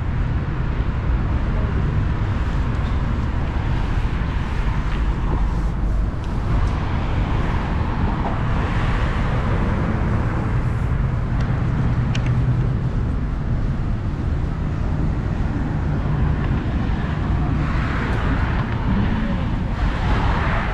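City street ambience: steady road traffic running, swelling now and then as vehicles pass.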